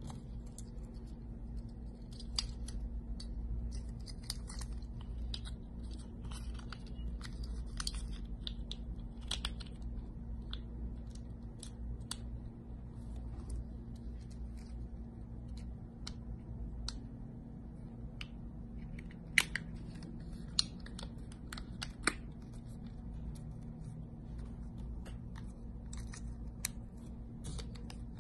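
Plastic parts of an Audi flip-key remote shell being handled and fitted together by hand: scattered small clicks and rustles, with three sharper plastic clicks a little past the middle as parts snap into place.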